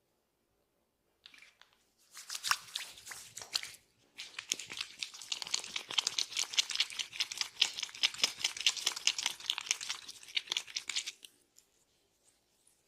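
A barber's fingers scratching and rubbing through hair and over the scalp during a head massage, a dense run of small scratchy crackles. There is a short burst about two seconds in, then a longer stretch from about four seconds until near the end.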